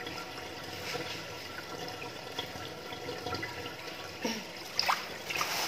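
Water running from a garden hose onto a tiled floor, a steady splashing flow. A few short knocks and a brief squeak near the end as things are handled.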